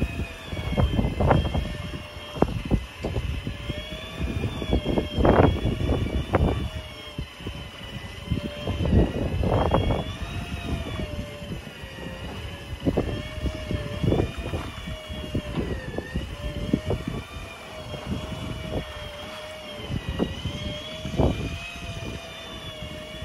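Fishing boat's engine running with a steady hum that wavers slightly in pitch, under repeated gusts of wind buffeting the microphone.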